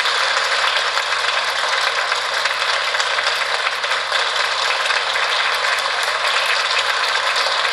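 Audience applauding: loud, dense, steady clapping.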